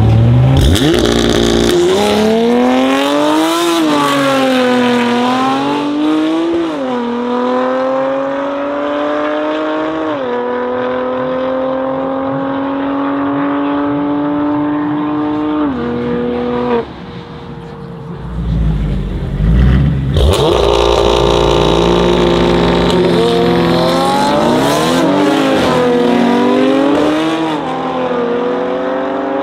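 Two cars launching and accelerating hard side by side: the loud twin-turbo straight-six of a 650 hp Stage 3 BMW M3 F80 with a decat Milltek exhaust, and an Audi RS Avant. Engine pitch climbs through each gear and drops sharply at four quick upshifts. About halfway through, a low rumble leads into a second hard launch with more upshifts.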